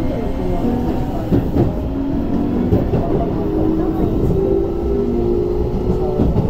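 Keio 8000 series train's Hitachi hybrid-SiC VVVF inverter and traction motors whining as it accelerates, heard inside the car: several tones rising slowly in pitch over a low rumble, with a few sharp clacks of the wheels over rail joints.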